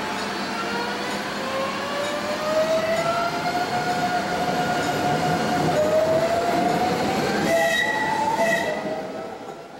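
Tren de la Costa electric train pulling away from the platform, its traction motors whining and rising steadily in pitch as it accelerates, dipping briefly about six seconds in before climbing again. A higher squeal joins for about a second near the end as the sound fades out.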